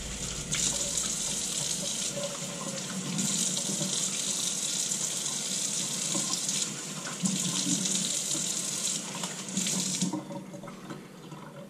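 Tap water running into a sink while leftover shaving lather is rinsed off the face with splashing hands. The flow stops about ten seconds in.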